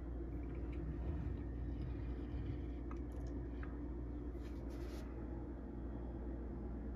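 Steady low room hum with a few faint clicks and one short, light scrape about four and a half seconds in, from a small diecast pickup truck being pushed and handled on a granite countertop.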